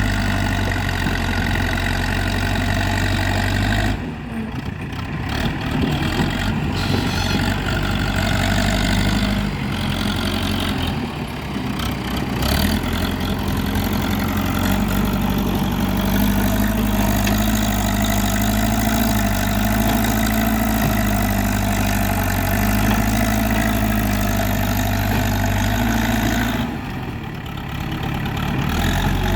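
Diesel engine of a JCB 3DX backhoe loader running steadily at work. Its sound changes abruptly about four seconds in and again near the end.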